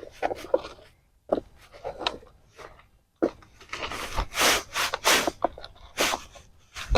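Freshly harvested sweet potatoes being handled and moved around: irregular knocks and rustling, sparse at first and busier from about three seconds in.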